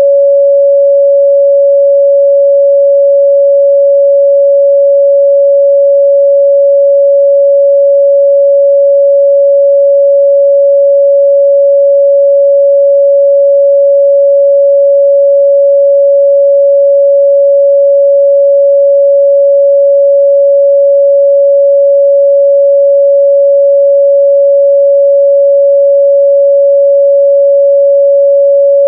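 Steady pure 561 Hz sine-wave test tone, loud and unchanging, with no other sound.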